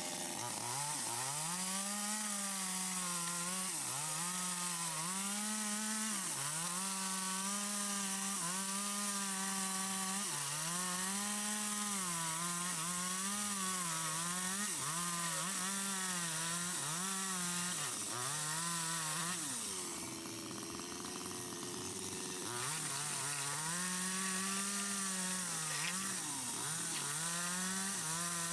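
Stihl MS 250 two-stroke chainsaw with a long 25-inch bar ripping lengthwise through wood at high revs, its pitch sagging and recovering again and again as the chain bites under load. About 20 seconds in it eases off to a lower, quieter speed for a couple of seconds, then revs back up and carries on cutting.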